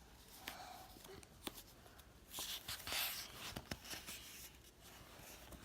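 Quiet room with a few faint clicks and a soft rustle of paper about two and a half seconds in, from the picture book being handled between lines.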